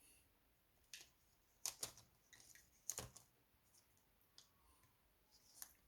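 Faint, irregular clicks and light taps, some in quick pairs, from small electronic parts and wires being handled and connected.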